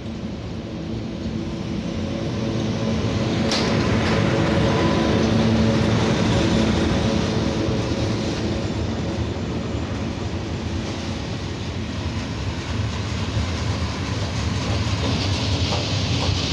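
Electric freight train passing at speed: the locomotive goes by with a steady hum in the first few seconds, then a long rake of open freight wagons rolls past with a continuous rumble of wheels on rail. The noise swells over the first five seconds, with one sharp clank about three and a half seconds in.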